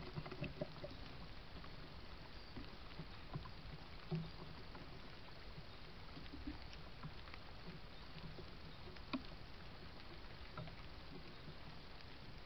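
A red squirrel scrabbling and tapping on a fallen log: scattered small scratches and taps over a steady hiss, with a sharper knock about four seconds in and another near nine seconds.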